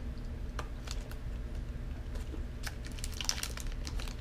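Candy-bar wrapper crinkling in the hands: a few scattered clicks, then a dense run of crisp crackles from a little over halfway in, over a low steady hum.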